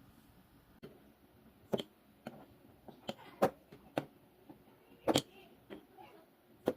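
Irregular light knocks and clicks from candle-making work: containers and tools being handled and set down, about eight sharp taps spread over several seconds, the loudest about two and a half and five seconds in.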